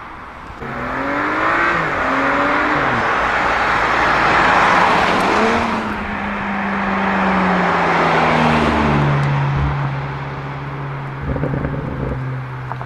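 A Stage 2 tuned BMW M5 F90's twin-turbo V8 accelerating hard through several quick upshifts, its exhaust note climbing and dropping with each shift. The note then settles into a steady, easing drone, with a few sharp exhaust crackles near the end.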